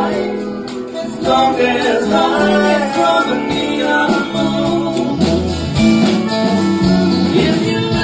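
Live country band playing a slow song on guitars, bass, drums and pedal steel guitar.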